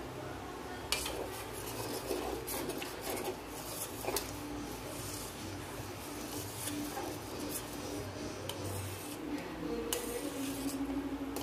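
A steel spoon stirring a stainless steel pot of thick, simmering oats, scraping the bottom and clinking against the side, starting about a second in. It is stirred continuously so the oats don't stick to the bottom.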